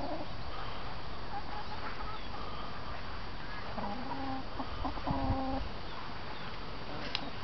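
Domestic hens clucking: a short run of brief pitched clucks about four to five and a half seconds in, over a steady background hiss.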